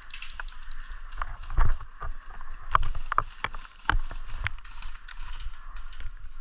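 An irregular string of sharp clicks and knocks with a few low thuds, the loudest about a second and a half in.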